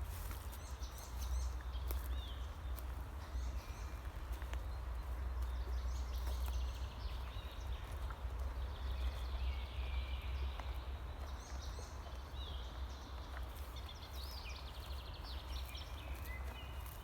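Songbirds singing in short, intermittent phrases of chirps and trills over a steady low rumble of wind on the microphone, with occasional faint clicks of footsteps.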